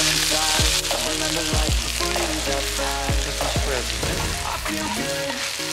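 Onions sizzling in hot oil in a cast-iron pan, a steady frying hiss. Background music with a steady beat plays under it.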